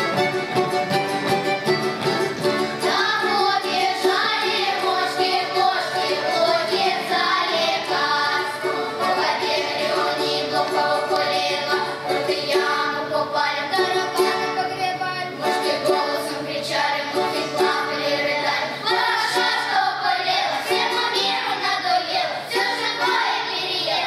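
Children's choir singing a folk song together, with accordion and a string instrument accompanying; the voices come in about three seconds in over the instrumental playing.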